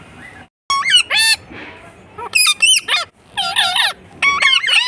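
Parrot vocalising: four loud bursts of high-pitched calls that bend up and down in pitch, starting just under a second in and repeating about once a second.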